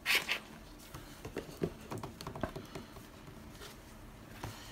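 Paper handling on a table: the pages of a glossy booklet turning and sheets being shifted. One sharp rustle comes right at the start, then scattered light rustles and taps.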